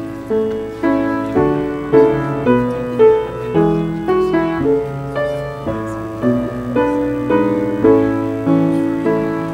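Piano playing a slow piece, with notes and chords struck about twice a second, each ringing and fading.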